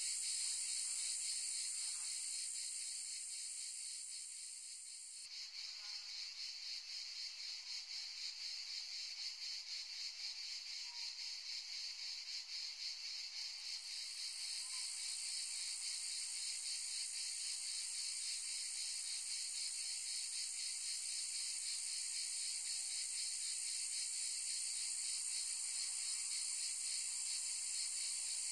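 Chorus of cicadas, a dense high buzzing that pulses rapidly; it thins a few seconds in and swells back to full strength over the following ten seconds.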